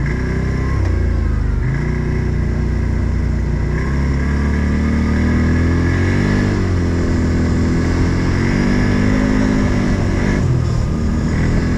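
Odes 800 off-road vehicle's engine running under load, its revs rising and falling repeatedly as it drives over rough ground.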